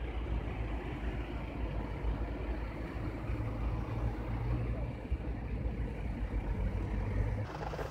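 Steady low rumble of idling vehicle engines with surrounding traffic noise.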